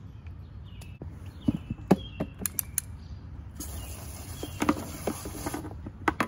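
Garden hose spray nozzle spraying water into an emptied plastic duck waterer to rinse out stuck food and dirt, a steady hiss lasting about two seconds from a little past halfway. Before it, several sharp knocks and clatters of the plastic waterer being handled.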